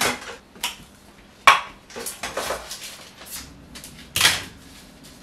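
Metal springform cake pan knocking on the counter and a butter knife clinking and scraping inside it as the pan is greased. About half a dozen separate knocks and scrapes, the sharpest about a second and a half in and another near the end.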